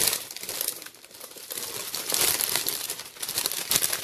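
Clear plastic wrapping crinkling and crackling as it is handled and pulled open while unwrapping a gift, in irregular bursts, loudest about two seconds in.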